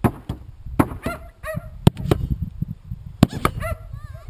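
Geese honking repeatedly, mixed with a series of sharp knocks, over wind rumbling on the microphone.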